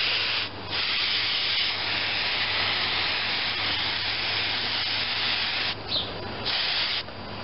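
Aerosol can of spray adhesive hissing as it sprays in one long burst. There is a short break about half a second in, and a brief final burst near the end.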